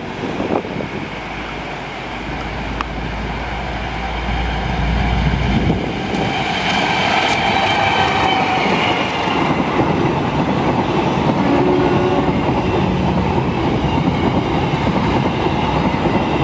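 Diesel-hauled passenger train passing close by. The locomotive's low engine rumble builds and then drops away about six seconds in, followed by a brief high ringing. The coaches then roll past with steady wheel noise on the rails.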